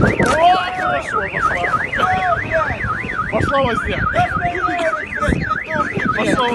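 Car alarm sounding, a fast up-and-down electronic warble of about three to four sweeps a second, set off as a sliding SUV strikes a parked car. Voices shout over it.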